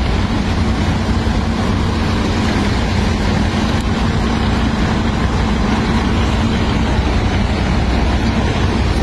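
Steady low rumble of bus engines idling, unbroken throughout, with a faint steady hum through the first half or more.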